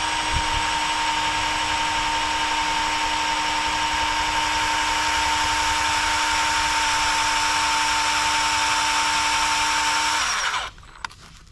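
A handheld power tool runs steadily on the metal exhaust flange with a high whine over a harsh hiss, its pitch sagging slightly under load. It stops abruptly near the end.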